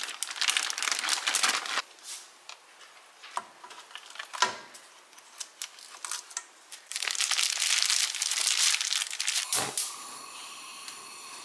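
Plastic bag of marinated crab legs and seafood crinkling as it is emptied into a pan. Scattered light knocks follow as the pieces are set in the pan, then more crinkling and a sharper knock. A steady faint hiss runs through the last second or so.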